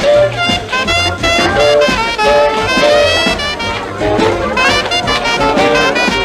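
Up-tempo big-band jazz with brass and saxophones playing quick melodic lines over a steady bass beat.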